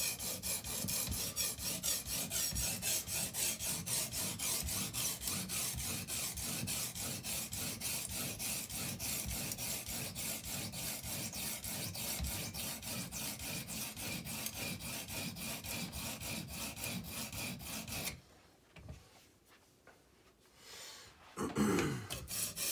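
Edge Pro Apex 80-grit diamond matrix stone stroked back and forth over a wet steel chef's knife blade, about four strokes a second. It is grinding the blade thinner behind the edge. The strokes stop about three-quarters of the way through, and a short sound follows near the end.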